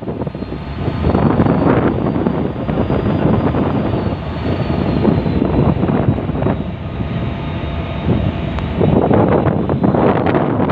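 Wind buffeting the microphone, a loud rushing roar that swells and eases in gusts every second or two.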